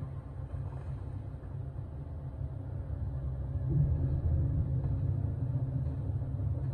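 Low, steady rumbling drone of a TV drama's suspense score, swelling about four seconds in, heard off a television speaker.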